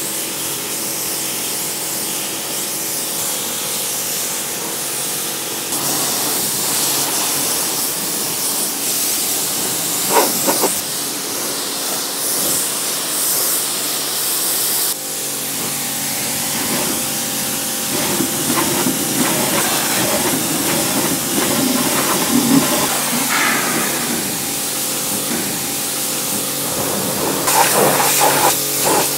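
Kärcher pressure washer jet hissing steadily as it blasts water over a 4x4's painted bodywork, windscreen and mud-caked wheel arch, rinsing off caked mud, over the steady hum of the washer's motor-pump. The spray sound changes abruptly about six and fifteen seconds in as the jet moves to another surface.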